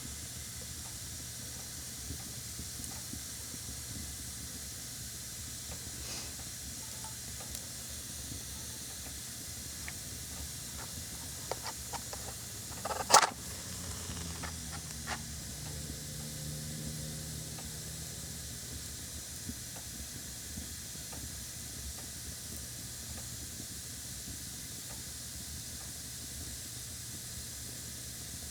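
A steady hiss with a few light clicks, then about halfway through one sharp strike, a match struck on its box; a low rumble follows for a few seconds.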